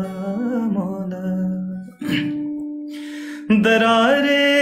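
A man singing a slow Hindi ballad to his own acoustic guitar. There is a short pause with a breath about two seconds in, and the voice comes back louder near the end.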